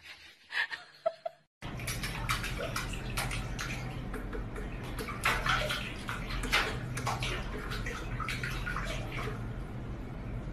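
Water splashing in a stainless-steel kitchen sink as a cat paws and steps about in it: a dense run of small splashes and knocks over a low steady hum, starting about one and a half seconds in.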